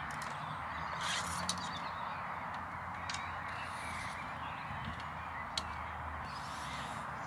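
Open-field ambience with birds calling in the distance, and a few short light clicks from handling the recurve bow and nocking the next arrow between shots.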